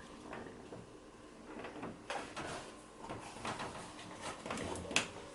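A washing machine door is opened and the washed bag handled. Scattered soft clicks and rustles, with one sharp click about five seconds in.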